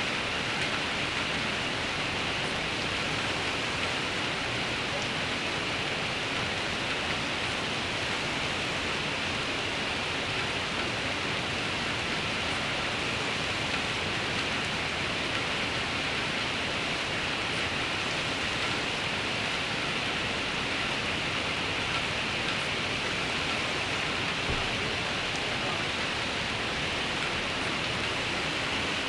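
Steady rain falling: an even, unbroken hiss at a constant level.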